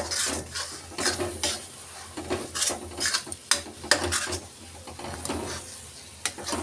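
Spatula scraping and stirring a thick masala paste around a metal kadai in irregular strokes, about two a second, with a light sizzle as the paste fries in oil. The spices have been fried through.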